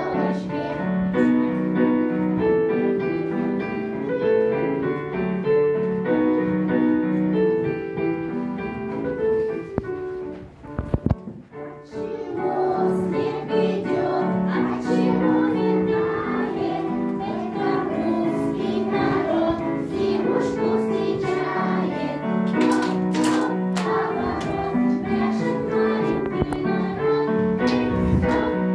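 A group of children singing a song together over an instrumental backing track. The music dips briefly about eleven seconds in, with a couple of sharp knocks, then carries on.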